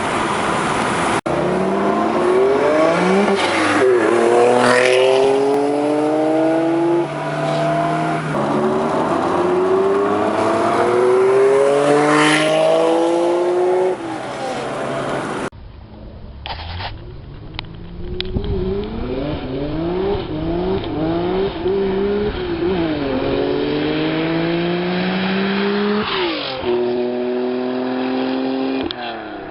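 Honda NSX V6 with a Taitec aftermarket exhaust accelerating hard: the engine note climbs through the revs and drops sharply at each upshift, again and again. About halfway through it switches to a second recording of the same kind of run.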